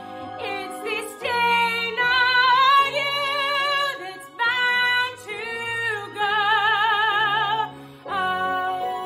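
A woman singing a musical-theatre song in a full, open voice over an instrumental accompaniment.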